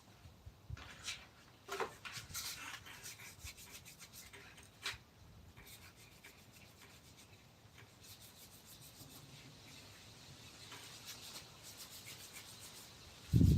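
Hand tool scraping and rubbing on wood, as in filing or sanding a carving: irregular short strokes for about the first five seconds, then a fainter steady rasp.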